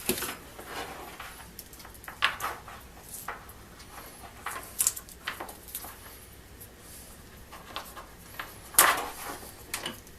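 Irregular clicks, taps and rustles of an electrical zip cord and tools being handled on a workbench, with a louder rustle near the end.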